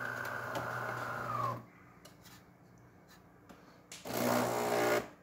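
DeLonghi Magnifica espresso machine's built-in burr grinder running steadily, its pitch dropping as it winds down and stops about a second and a half in. A few faint clicks follow, then about four seconds in the machine starts a low hum that lasts about a second.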